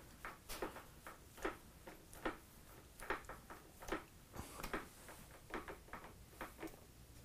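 Faint, irregular light clicks and knocks, about three a second, as a three-jaw chuck on a milling machine spindle in neutral is turned slowly by hand.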